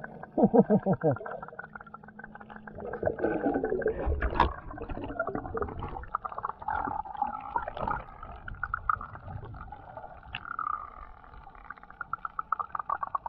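Muffled underwater sound through a camera housing: bubbling and gurgling bursts from a diver's scuba regulator exhaust, with a steady patter of fine clicks. A strong run of falling gurgles comes about a second in.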